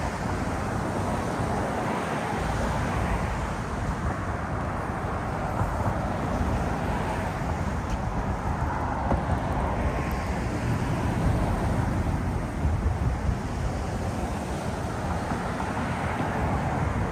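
Steady city traffic rumble with slow swells as vehicles pass, mixed with wind noise on the microphone.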